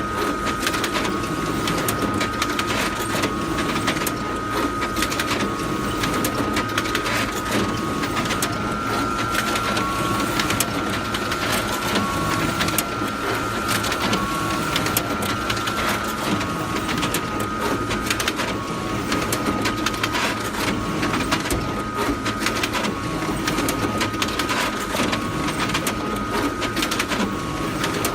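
Photocopier running continuously: a steady mechanical whirr with a constant high tone, fine rapid clicking, and a faint cycle that repeats about every two seconds as the pages feed through.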